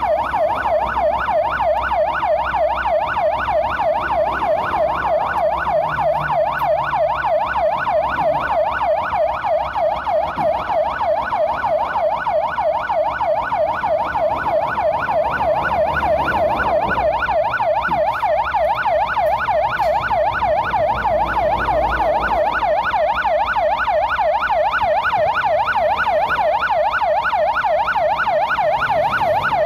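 Police car siren in a fast yelp, its pitch sweeping up and down about four times a second without a break.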